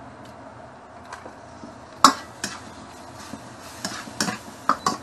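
A spatula knocking and scraping against a wok while egg and pork are stir-fried. There is one sharp clank about two seconds in, then a quick run of clatters near the end.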